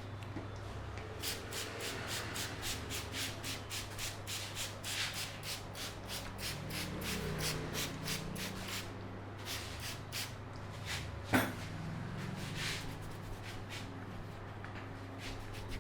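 Hands rubbing a person's hair and scalp in a head massage: a rhythmic run of brushing strokes, about three to four a second. Then come a few sharper slaps, one louder than the rest about eleven seconds in.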